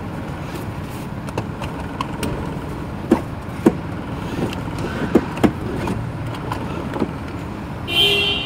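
Steady low rumble of a car idling, with scattered clicks and knocks as the seatbelt is pulled out and handled during a seatbelt check. A short high electronic beep comes near the end.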